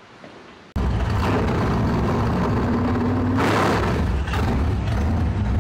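Loud, steady race-car engine noise that starts abruptly about a second in, running hard at high revs.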